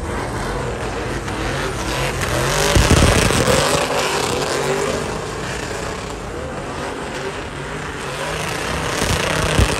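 Pickup truck engines revving hard, pitch rising and falling, as the trucks spin burnout donuts with their rear tyres spinning on the pavement; loudest about three seconds in.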